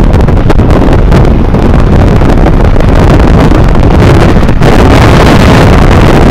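Strong wind buffeting the microphone: a loud, steady rumble with no other clear sound above it.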